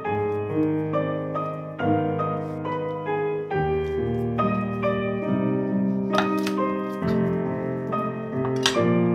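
Background piano music, a steady run of single held notes, with a few light clicks about six seconds in and near the end.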